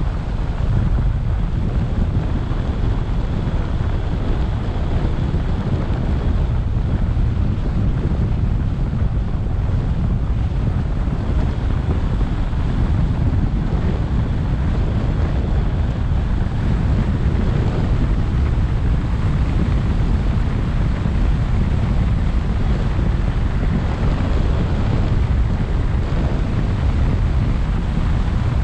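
Wind blowing over the microphone of an action camera mounted on the roof of a moving car, a steady low rumble with road noise from the tyres underneath.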